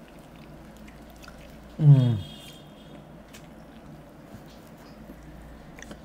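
A man chewing a big mouthful of naan and chicken curry, with faint wet mouth clicks. About two seconds in comes one short, loud hum of enjoyment through the full mouth, falling in pitch.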